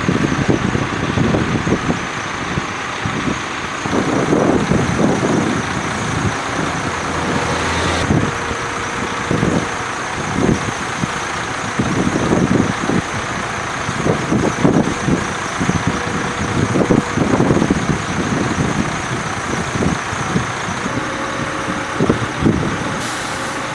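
Heavy trucks' diesel engines running steadily at idle, with irregular low rumbles coming and going.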